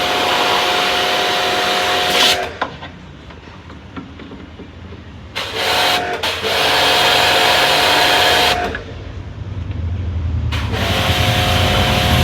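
High-pressure water jet washer spraying in three bursts, with a steady motor whine and a loud hiss each time the trigger is held, washing a dirty window air conditioner. A low hum grows louder in the last few seconds.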